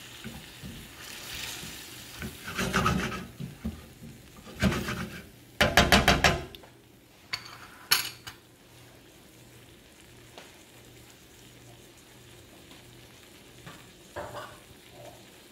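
A silicone spatula stirring chicken pieces in tomato sauce in a stainless steel frying pan: a few wet scraping strokes, the loudest about six seconds in. Two short sharp taps follow. After that only a faint, steady simmering hiss comes from the pan.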